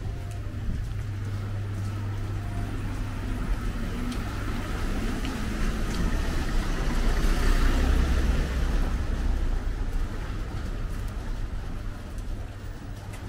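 A motor vehicle's engine running close by, growing louder to a peak about seven to eight seconds in and then fading as it passes.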